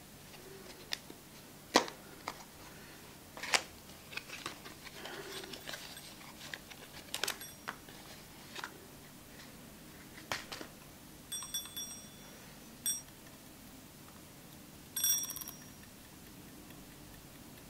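Small clicks and rustles of paper and plastic packaging as the Vktech 360° time-lapse rotator is taken out and handled. In the second half come a few brief, high metallic dings, then one more near the end, from its wind-up, egg-timer-style mechanism being turned.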